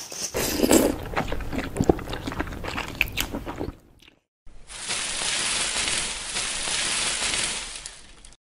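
Close-miked eating of noodles with chopsticks, a run of crunching and chewing sounds for about four seconds. After a short break a steady hiss takes over.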